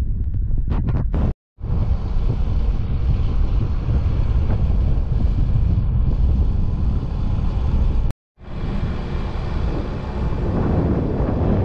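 Wind rumbling on the microphone of a camera riding on a moving motorcycle, a steady low noise that cuts out briefly twice.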